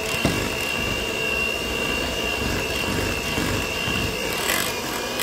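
Electric hand mixer running at a steady speed, its beaters whipping cream cheese frosting in a glass bowl, with a constant high motor whine.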